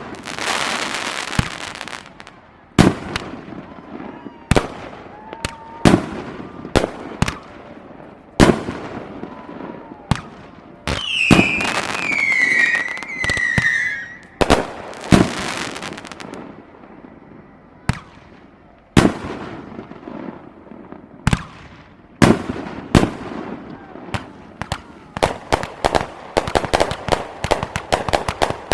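Aerial fireworks display: a string of sharp bangs from bursting shells, each trailing off in crackle and echo. A wavering whistle glides downward for about three seconds a little before halfway, and a rapid barrage of reports builds near the end.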